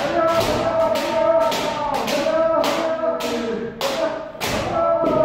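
Kendo practice: several players shouting drawn-out kiai over one another while bamboo shinai strike armour in sharp cracks, about two a second, with stamping footwork thuds.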